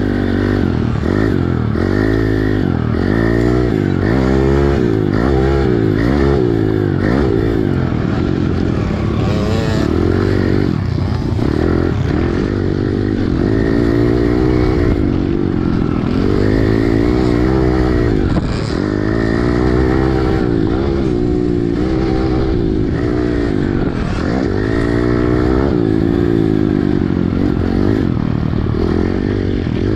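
Pit bike's single-cylinder engine heard from on the bike, revving up and dropping off again and again as the rider runs through the gears and rolls off for corners.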